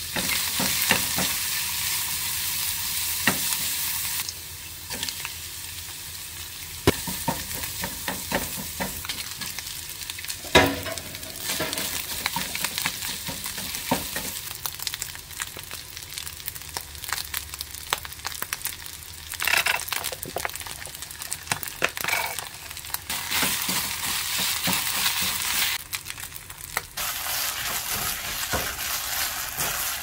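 Food sizzling in a hot frying pan while being stirred, with a spatula scraping and tapping against the pan. The sizzle grows loud and dies back several times.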